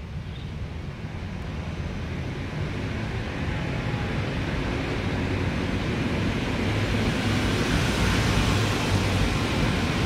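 Steady outdoor background noise: a low rumble with a hiss above it that grows slowly louder.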